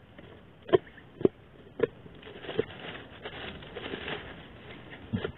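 Meal being handled on a mat: a few short taps and clicks of plates and food containers, then a stretch of soft rustling.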